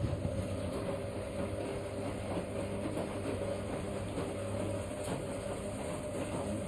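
Siemens washing machine running: a steady motor hum with the drum rumbling as it turns.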